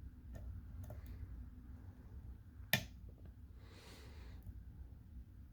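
Lock pick working the pins of an American pin-tumbler padlock: a few faint small clicks, then one sharp click about two and a half seconds in, the sound of a pin setting as the core turns slightly.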